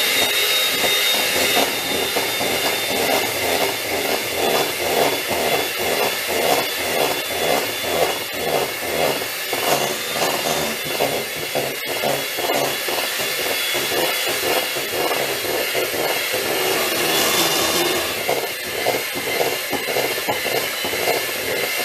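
Electric hand mixer running at high speed with its beaters in cake batter in a metal bowl: a steady motor whine with a rhythmic pulse about two to three times a second as the beaters work through the batter, beating in the flour and baking powder.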